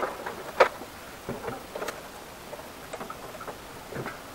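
Scattered light knocks and clicks, the sharpest one about half a second in, with smaller ones at irregular gaps afterwards.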